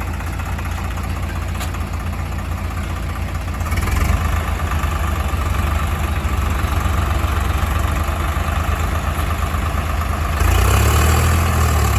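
Heavy diesel engines of construction and farm machinery running steadily, with the engine sound getting louder about four seconds in and again near the end.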